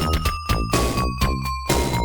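Upbeat video game background music: a lead melody over a steady, driving electronic beat.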